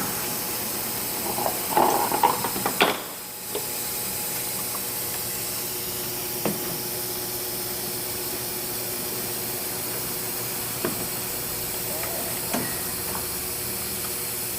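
Steady hiss with a faint hum throughout, broken by a few knocks and clatter about two seconds in, a brief drop-out just after, and a few single clicks later on.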